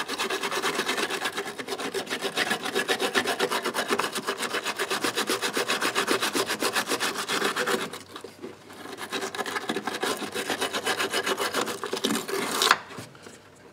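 Hand wire brush scrubbing corrosion off a car battery cable terminal in rapid back-and-forth strokes, with a short lull about eight seconds in and a sharp knock near the end.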